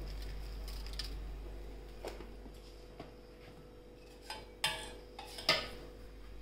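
Clinks and knocks of steel kitchen utensils being handled: a few light clicks, then a cluster of louder knocks near the end. A faint steady hum runs underneath.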